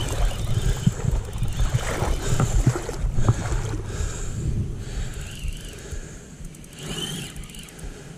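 Wind buffeting the microphone over water, with scattered short knocks and handling noise. It is loudest in the first half and eases off after about four seconds.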